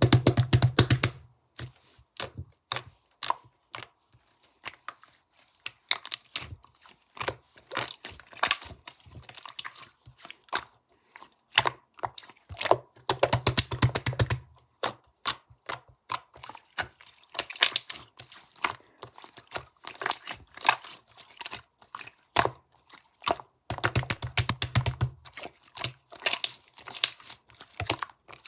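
Rapid, irregular crackling and clicking of something crinkly being handled. There are three louder, denser stretches of about a second and a half each: at the start, around thirteen seconds in, and about twenty-four seconds in.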